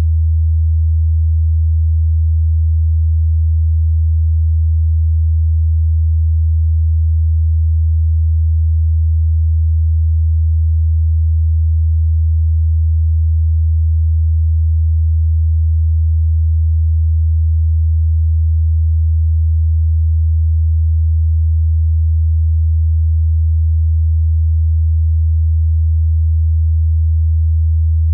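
A single low electronic sine tone, held at one steady pitch and level.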